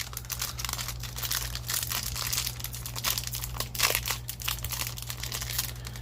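Foil wrapper of a trading-card pack crinkling and tearing as it is pulled open by hand, a dense run of crackles.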